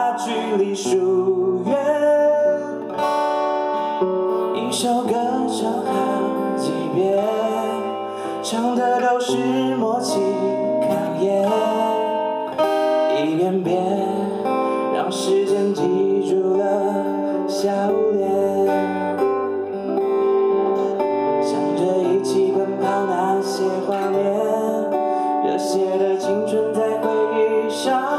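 Two acoustic guitars playing an instrumental interlude of a song, a picked melody line over strummed chords.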